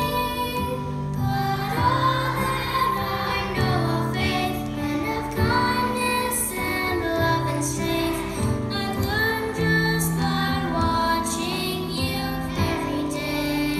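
A large choir of young kindergarten children singing a song together with instrumental accompaniment.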